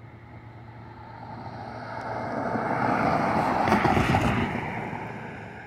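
A vehicle passes close by: a rush of engine and road noise swells to a peak about four seconds in, then fades.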